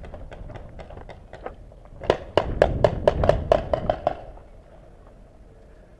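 Paintball marker firing a rapid string of about a dozen sharp shots, starting about two seconds in and stopping near four seconds, with fainter, evenly spaced clicks before it.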